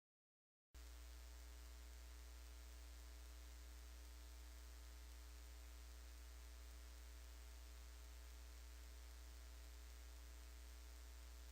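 Near silence: a faint, steady electrical hum with hiss, starting abruptly about a second in.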